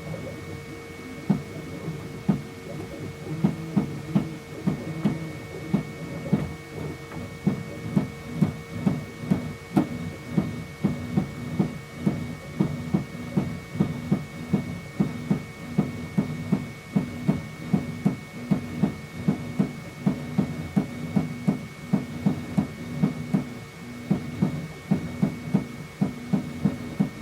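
FlashForge Adventurer3 3D printer running, its motors humming steadily, with repeated sharp drum-like knocks, about two to three a second, that start about a second in and come fairly evenly from about seven seconds in. This abnormal impact noise, with the filament tube shaking, is a fault: the owner first suspected a deformed flexible build plate and later traced it to the print-head distance.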